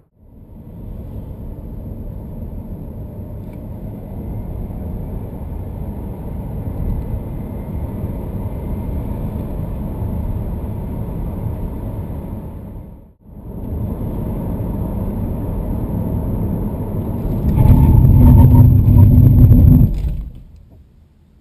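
Cabin noise of a 2014 Holden Volt accelerating hard: steady road and tyre rumble. After a break, the car brakes hard from 100 km/h, and a loud low rumble builds in the last seconds of the stop, with the car in low traction, then fades as it comes to rest.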